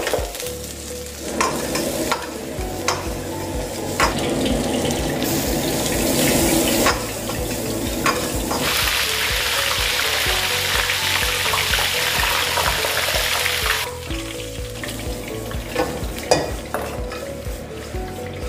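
Spices and cashews sizzling in hot ghee in a wok, stirred with a ladle that knocks and scrapes against the pan. Between about five and fourteen seconds in, the sizzle swells into a louder, hissier spitting, then settles back.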